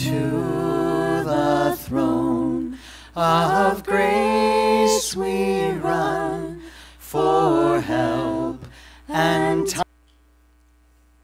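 A hymn sung in several phrases by a singing voice. The singing cuts off suddenly about ten seconds in, leaving only a faint electrical hum.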